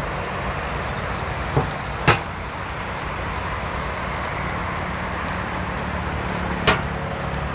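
Steady road traffic noise from cars passing at speed on a multi-lane road, with a few short sharp clicks: two about one and a half to two seconds in, and one near the end.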